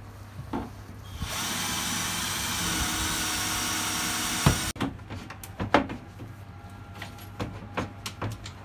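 Cordless drill driving into the wooden shelf unit, running steadily for about three and a half seconds and then cutting off suddenly. Afterwards comes a series of light wooden knocks and clicks as a shelf board is fitted into place.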